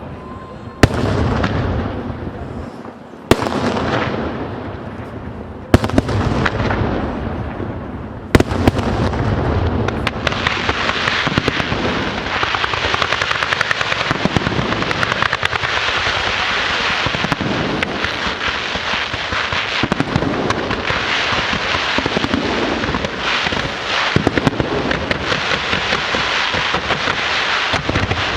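Fireworks going off: four heavy shell bursts a couple of seconds apart, each a loud bang followed by a long fading rumble. From about ten seconds in they give way to dense, continuous crackling thick with small sharp pops.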